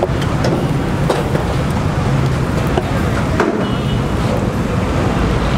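Steady, loud street noise with a low, traffic-like rumble, broken by a few light clicks and taps.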